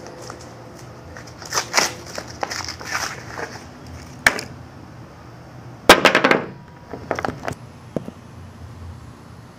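Camera handling noise: a series of sharp knocks and clatters, the loudest a quick cluster about six seconds in as the camera is moved.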